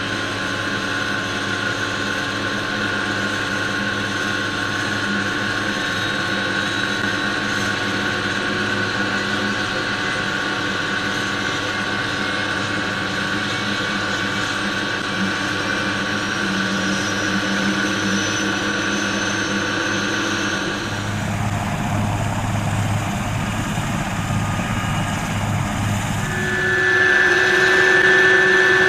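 Oryx helicopter's twin Turbomeca Makila IA1 turboshaft engines and rotor running, a steady turbine whine with several held tones. About two-thirds through the sound changes abruptly, and a few seconds before the end a louder high whine sets in over a lower steady tone.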